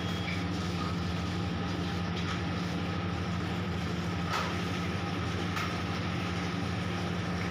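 Steady low mechanical hum at an even level, with two faint ticks a little after the middle.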